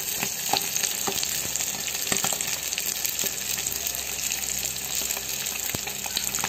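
Fish pieces deep-frying in hot oil in a pan: a steady sizzle with frequent crackles and pops.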